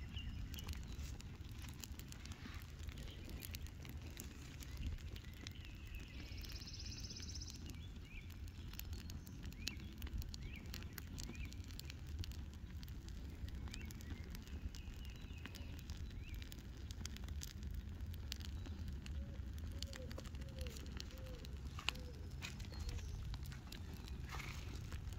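Burning welcome mat crackling, with many sharp snaps and pops scattered throughout over a steady low rumble of the flames.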